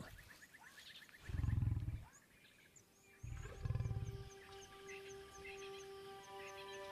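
Male lion growling twice at a kill, two deep rumbling growls of about a second each, the second about three seconds in: a lion guarding its meal. Soft music with a held tone comes in after the second growl.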